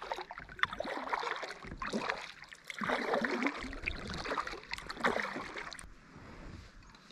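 Kayak paddle strokes in lake water, a swishing splash about every second, dying away near the end.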